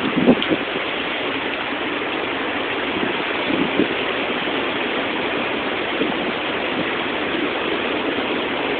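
Heavy, wind-driven downpour from a severe thunderstorm, a steady even rush of rain.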